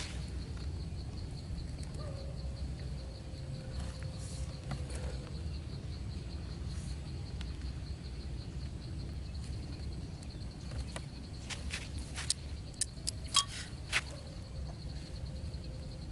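Insects trilling steadily with a high, even buzz over a low outdoor rumble. Near the end comes a quick run of sharp clicks or snaps.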